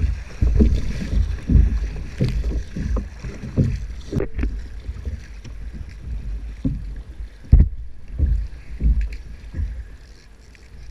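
Wind rumbling on the microphone while choppy water slaps against a kayak hull in uneven thumps, with a couple of sharper knocks, the loudest about seven and a half seconds in.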